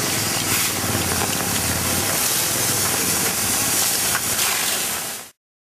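Fire hose water jet spraying onto a charred building and debris: a steady hiss with a low engine hum underneath. It cuts off suddenly near the end.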